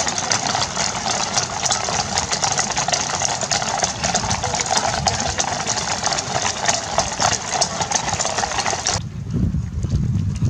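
Hooves of many horses clattering on brick paving as a large mounted column walks past, a dense continuous clip-clop. About nine seconds in it stops abruptly and gives way to a low rumble with a few dull thumps.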